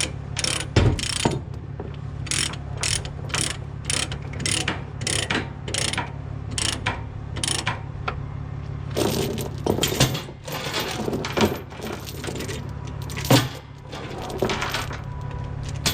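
A ratchet chain binder being cranked to tension a tie-down chain, its pawl clicking about twice a second. In the second half this gives way to an irregular clatter of chain being handled. A truck engine idles low underneath throughout.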